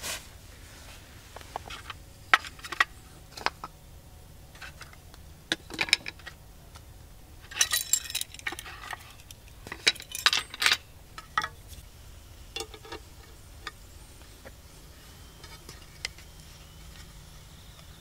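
Wooden and metal cooking utensils being lifted out of a cast-iron grill pan and set down: scattered knocks and clinks, busiest about eight and ten seconds in, then only a few light taps.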